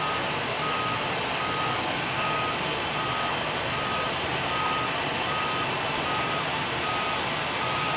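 Vehicle reversing alarm beeping steadily, one single-tone beep a little over once a second, over a steady engine din from the ground equipment on the apron.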